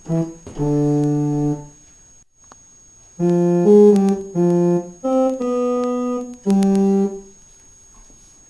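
Electronic keyboard playing a slow phrase of long held notes: one long note, a pause, then a short run of changing notes that ends on a held note about seven seconds in.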